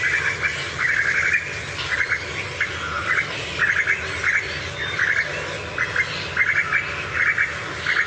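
Recorded call of a female Asian koel: a high-pitched bubbling kik-kik-kik given in short runs of rapid notes, about once a second.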